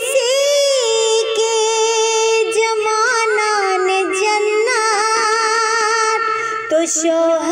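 A woman singing a manqabat, an Urdu devotional song, drawing out long wavering notes with no clear words.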